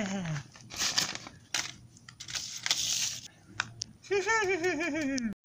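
Rustling and crinkling as a nylon wallet is grabbed and handled, in uneven bursts through the middle. A wavering, warbling voice without words is heard at the very start and again in the last second or so, sliding down in pitch before cutting off suddenly.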